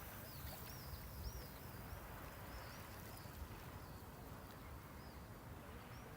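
Gentle sea waves washing at the shoreline as a steady soft rush. Over them, a small bird gives a quick series of short, high chirps through the first five seconds or so.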